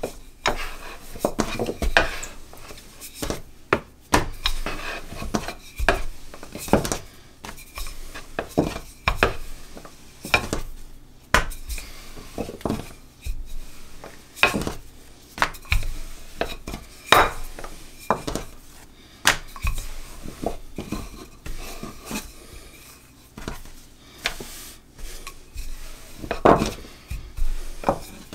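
Wooden rolling pin rolling out naan dough on a wooden board, with frequent irregular knocks and clatters of the pin against the board.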